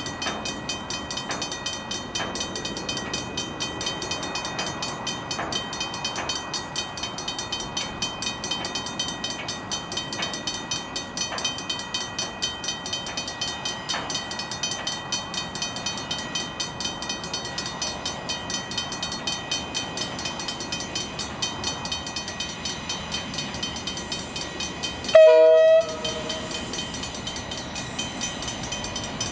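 Train of KiwiRail DL class diesel locomotives rolling past, with wheels clicking fast and steadily over the rails. A short, loud horn blast sounds near the end.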